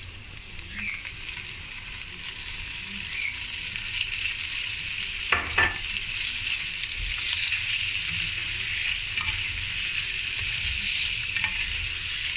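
Food sizzling steadily in hot oil in a wok, the hiss building slightly. Two quick knocks of a utensil against the wok a little past five seconds in.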